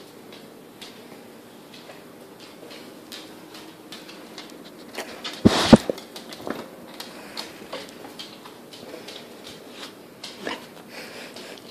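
A dog moving about close to the microphone, with scattered small ticks and mouth smacks. About five and a half seconds in there is a loud bump and rustle as its furry face presses against the microphone.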